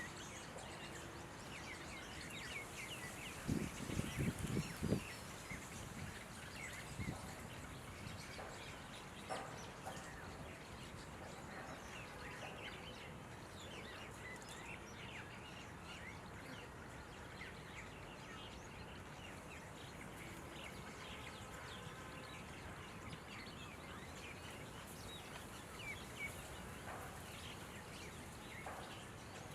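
Birds chirping and calling, red-vented bulbuls among them, over steady outdoor background noise. A few low thumps come about four seconds in and are the loudest sounds.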